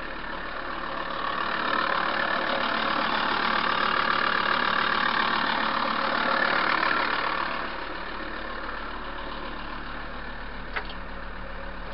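VW T4 van engine idling steadily after firing up on a new starter battery, louder for several seconds in the middle when heard at the open engine bay. A faint click near the end.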